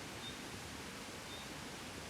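Soft, steady wind rustling, an even hiss with no gusts. Two faint, short, high chirps sound over it, about a quarter second and just over a second in.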